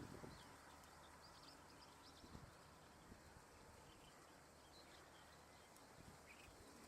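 Near silence with faint, short, high bird calls: a cluster in the first two and a half seconds and one more near the end. Soft low bumps come at the start and about two seconds in.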